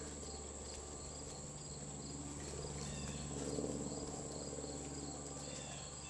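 Insects chirping steadily: a regular, evenly spaced chirp over a continuous high-pitched trill, heard faintly.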